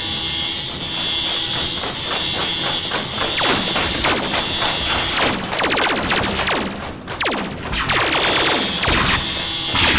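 Synthesized science-fiction laser-gun fire over a steady high electronic tone. A rapid pulsing comes first, then from about three and a half seconds in a string of zaps that each drop steeply in pitch.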